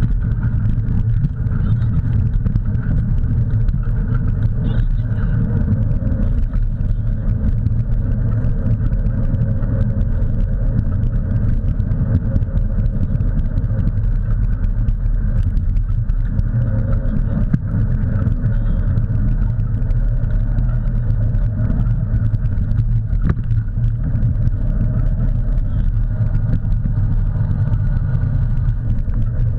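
Steady rumble of wheels rolling at speed on a dirt road, with wind on the microphone, as a dog-drawn rig is pulled along.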